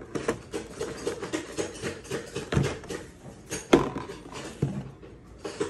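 Packaging being handled on a table: irregular rustling and tapping of card and plastic, with one sharp knock a little under four seconds in.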